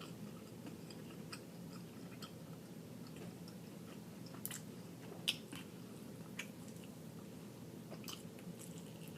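A person chewing fried chicken close to the microphone: soft mouth sounds with scattered sharp clicks, the loudest about five seconds in, over a steady low hum.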